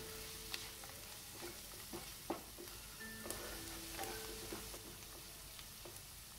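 Chopped onions, with salt and turmeric just mixed in, sizzling in oil in a kadai as they are stirred with a spatula, which knocks against the pan several times.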